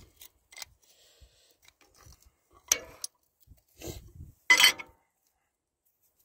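Scattered metallic clinks and scrapes of hand work on a plough's hitch linkage as the adjuster on the link arm is loosened, with two louder clanks, one near three seconds in and one about four and a half seconds in.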